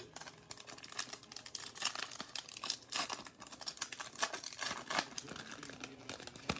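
Plastic wrapper of a trading card pack being torn open and crinkled by hand, a dense, irregular crackling.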